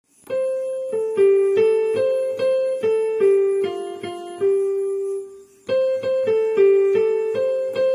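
Ringtone melody in an electric-piano sound. A quick run of single notes ends on a held note, then the same phrase starts over just past halfway through.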